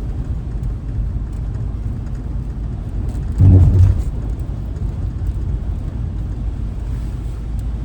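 Campervan driving on the road: a steady low engine and road rumble, with a brief louder low sound about three and a half seconds in.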